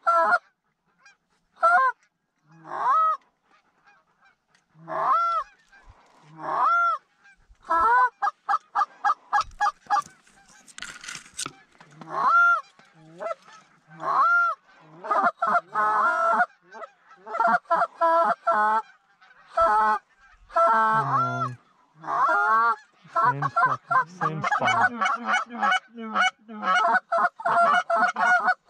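Canada goose calls blown by hunters to lure geese in: single drawn-out honks a second or two apart at first, then fast runs of short clucks and honks that grow almost continuous in the second half.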